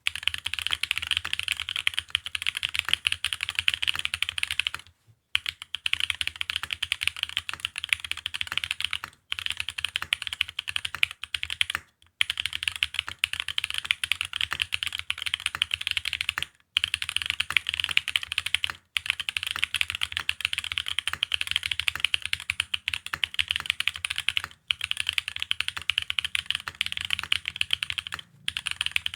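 Fast continuous typing on a custom mechanical keyboard (F1-8X) with tactile Holy Panda switches in Cherry housings, on an aluminium leaf-gasket plate. The sharp clicky keystrokes run in quick bursts, broken by brief pauses every few seconds.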